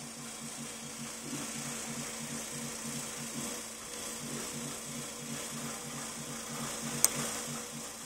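TSK APM-90A wafer prober running while it probes a wafer: its chuck steps from die to die with an even, repeating pulsing hum several times a second. A single sharp click sounds about seven seconds in.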